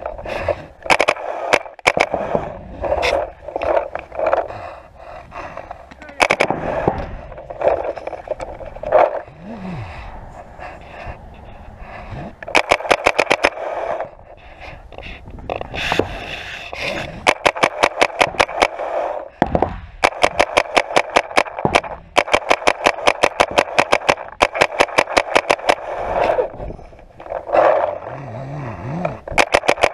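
Paintball marker firing rapid strings of shots, roughly ten a second, in several bursts, the longest lasting a few seconds in the second half, with single scattered shots earlier.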